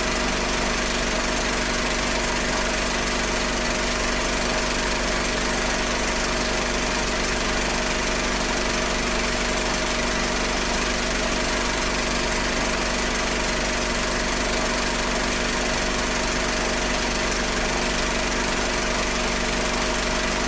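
Cinema film projector running steadily: a constant mechanical whir with a steady hum.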